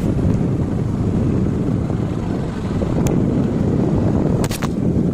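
Motorcycle riding along a bumpy dirt trail: a steady, loud engine and tyre rumble mixed with heavy wind buffeting on the microphone, with a few short sharp clicks about three seconds in and again near the end.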